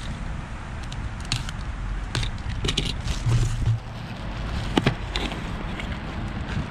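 Plastic shrink wrap rustling and crinkling as it is pulled off a cardboard parts box, then the box's cardboard flap opened, with a few sharp clicks and taps among the handling.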